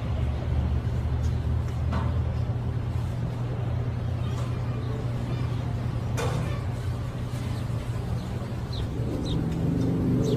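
Engine of a moving jeepney running with a steady low drone, heard from inside among the passengers, with a couple of faint knocks and rattles.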